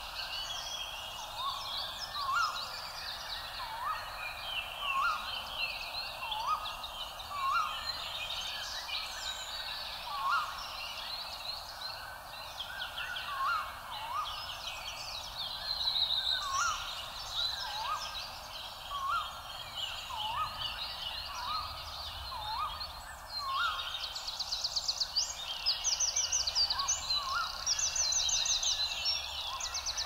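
Several wild birds calling and singing together. A short upward-flicking call repeats every second or two beneath busier high chirping and twittering, and a fast trilling song joins near the end.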